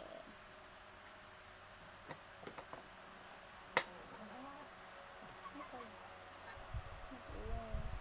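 Steady high-pitched insect trilling, like crickets, goes on throughout. One sharp click sounds a little under four seconds in, and low bumping noises start near the end.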